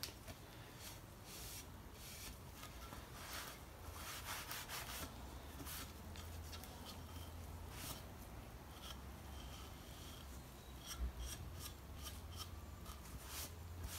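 Cotton rag rubbing over a freshly finished wood board in faint, irregular wiping strokes, taking off the excess varnish-oil finish after the first coat. A low steady hum runs underneath.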